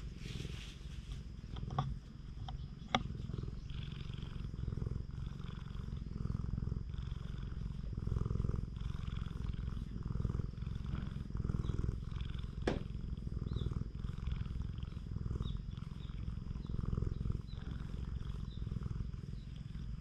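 Domestic cat purring steadily, a low pulsing rumble, as it is stroked. A few sharp clicks come in the first three seconds and once more past the middle.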